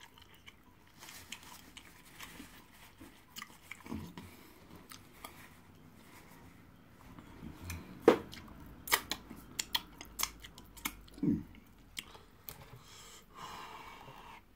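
Close chewing and wet mouth sounds of a man eating fufu with egusi soup by hand, with a run of sharp smacking clicks in the second half.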